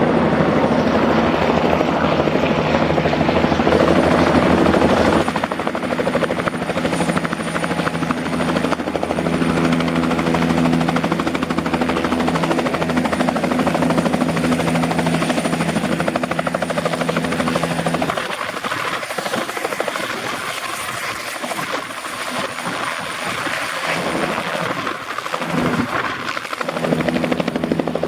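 Turboshaft helicopters running steadily, a whine of level engine and rotor tones over a rushing noise. About five seconds in it switches from a twin-engine Bell 429 GlobalRanger to a single-engine Bell 505 JetRanger X, whose deepest tones fade for several seconds near the end.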